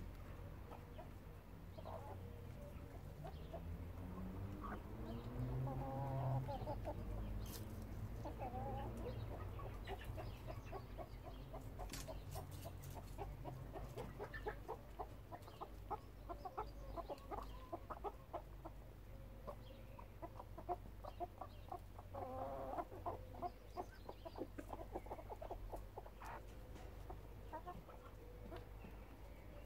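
Backyard chickens clucking as they forage: many short clucks from several hens, busiest through the middle.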